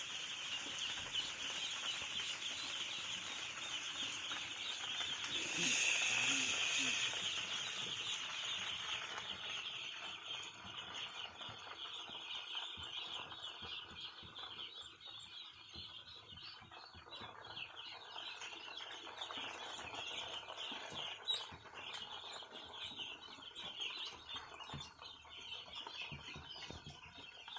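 A crowd of ducklings peeping continuously, many high chirps overlapping. It swells briefly about six seconds in and is a little fainter in the second half.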